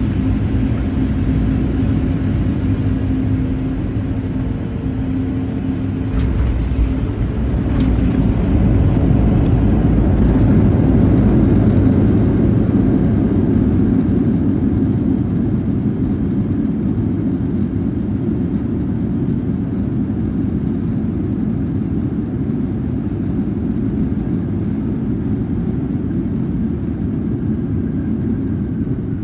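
Boeing 737-800 cabin noise during landing: a steady engine hum, then a sudden low jolt about six seconds in as the wheels touch down. A rushing rumble swells for several seconds and then slowly eases as the jet slows on the runway.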